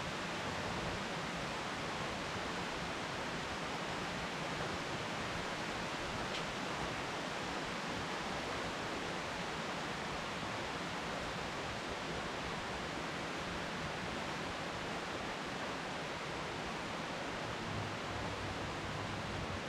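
Steady rain falling on dense leafy trees: an even, unbroken hiss of rain with no thunder.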